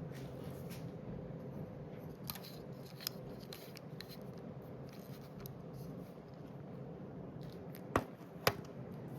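Emerson Premium ceiling fan motor running with a steady low hum. Two sharp clicks come near the end, half a second apart.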